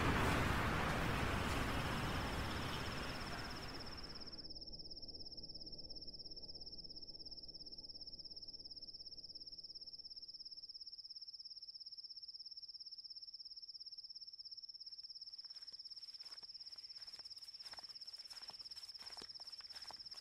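Insects trilling steadily in a high, finely pulsing cricket-like chorus, under a loud rushing noise that fades away over the first four seconds. Near the end, light crackling steps through dry leaf litter begin.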